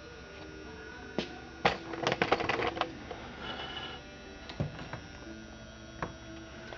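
Sharp clicks and light knocks from a Husqvarna 281 XP chainsaw being handled, with a quick rattling run of clicks around two to three seconds in. A faint steady hum sits underneath.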